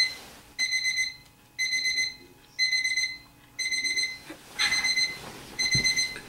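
Digital alarm clock beeping: bursts of quick, high-pitched beeps repeating about once a second.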